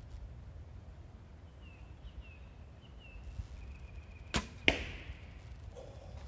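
A single shot from a recurve bow: a sharp snap of the string on release, then, about a third of a second later, the thud of the arrow striking the paper target.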